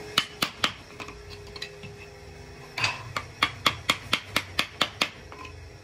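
Wooden paintbrush handles clacking against one another and against wood as they are handled and gathered: three sharp knocks near the start, then a quick run of about ten knocks, roughly four a second, that stops shortly before the end.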